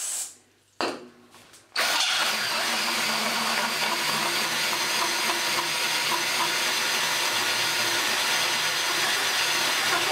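DeWalt 18V cordless combi drill driving a hole saw into a metal plate. A short burst comes about a second in, then the drill motor runs and the saw cuts steadily from about two seconds in.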